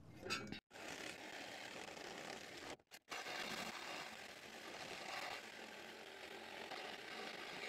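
Cordless Milwaukee Fuel reciprocating saw with a Diablo carbide blade cutting through a steel bumper tube, a steady buzzing cut. It drops out to silence briefly twice, about half a second in and about three seconds in.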